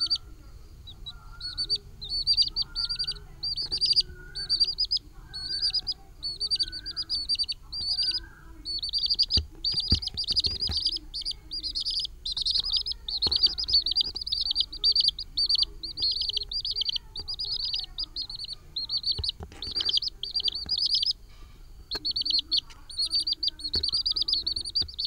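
Chicks peeping continuously in quick runs of short, high, falling cheeps, with fainter lower calls beneath and a few knocks.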